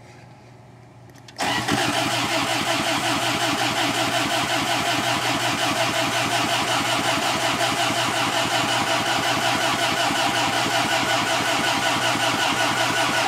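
Caterpillar forklift's propane (LP) engine being cranked by its starter in about 10°F cold, a fast, even pulse, without catching. The cranking starts about a second and a half in, runs for about twelve seconds and cuts off abruptly.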